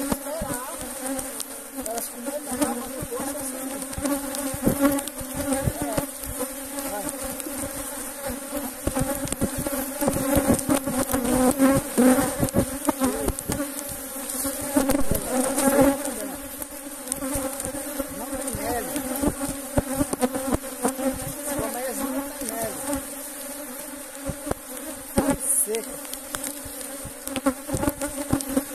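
Honeybee colony buzzing at an opened wooden box hive: a steady, many-bee drone, with scattered knocks as the hive lid and frames are handled.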